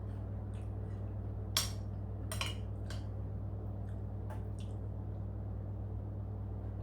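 Cutlery clinking against a plate during eating: a handful of sharp clinks in the first few seconds, over a steady low hum.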